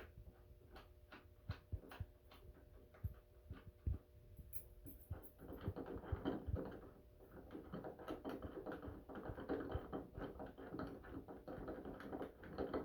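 Faint scattered clicks and knocks, turning into a denser rustling clatter from about halfway through, the sound of someone moving about and handling things.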